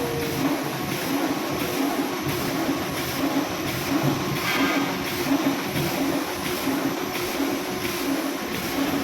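Cold-cutting bag-making machine running, with a steady, regular mechanical rhythm from its repeated cutting cycles. A brief higher hiss or squeal comes about four and a half seconds in.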